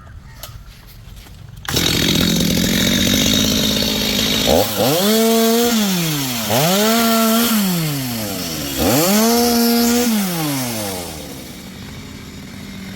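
Stihl two-stroke chainsaw cuts in loudly, then is revved up to full throttle and let fall back three times, each rev held for a second or two. Near the end it settles to a quieter idle.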